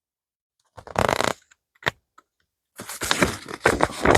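Packaging of a diamond painting kit being handled: a short rustle about a second in, a sharp click near two seconds, then continuous crinkling and rustling from about three seconds in.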